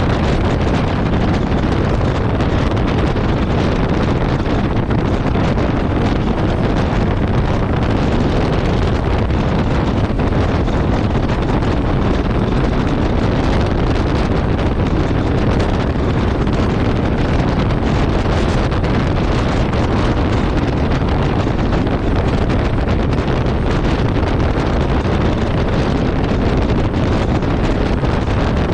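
Steady wind rushing over the microphone of a Yamaha Ténéré 700 riding at road speed, mixed with the motorcycle's engine and road noise.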